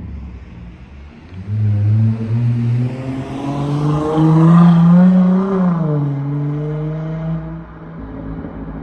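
Dodge Charger SXT's V6 exhaust through Flowmaster Super 10 mufflers, accelerating. The note climbs in pitch and grows louder, then drops about six seconds in and settles to a steadier, lower drone.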